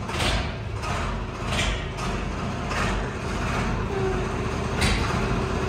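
Swaraj 855 tractor's diesel engine running during a test start, a steady low rumble with a few brief swells in level.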